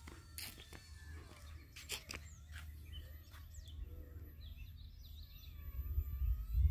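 Small birds chirping and singing, strongest in the second half. Under it is wind rumbling on the microphone, which grows louder near the end, and a few sharp clicks come in the first couple of seconds.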